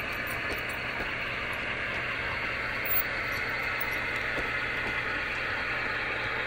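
Model trains running on the layout: a steady whirring of the locomotive motors and the wheels on the track, with a few faint clicks.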